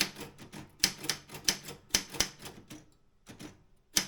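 Optima M16 manual typewriter being typed on: a dozen or so irregular keystrokes, with a short pause a little after two and a half seconds in.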